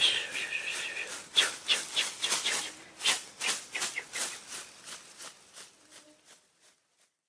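Sound effects for an animated logo: a brief high tone, then a string of short, irregular swishing or rattling hits that die away, ending in silence about seven seconds in.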